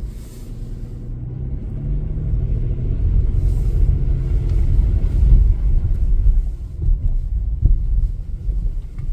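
A car driving, heard as a low, steady rumble of engine and road noise from inside the cabin, growing louder over the first few seconds.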